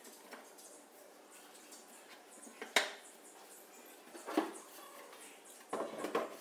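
Separate sharp knocks from handling wooden beehive parts, then a short clatter near the end as a sheet-metal outer cover is set down on top of the wooden hive box.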